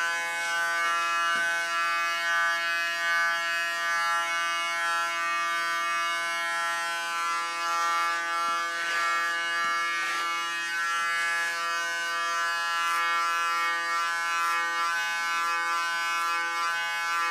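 Electric hair clipper running with a steady, even hum as it is passed over closely cropped hair.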